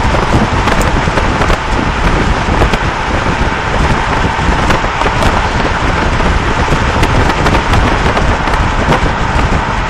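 Steady loud rush of wind and road noise from a moving car, heard on a phone's microphone.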